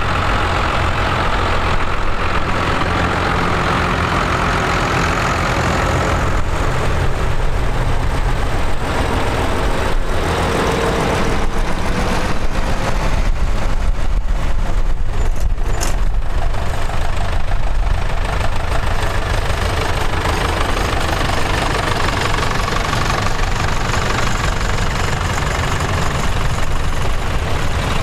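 Farm tractors' diesel engines running at low revs as a procession of tractors drives slowly past, one after another: a blue New Holland, an older white tractor and a green John Deere. The engine sound holds steady, swelling a little as each tractor comes close.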